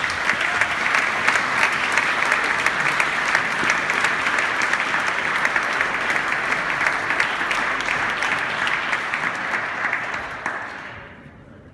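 Audience applauding: a steady dense clapping that dies away near the end.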